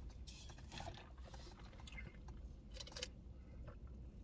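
Faint small clicks and rustles of a drink can being handled and sipped from, over a low steady rumble.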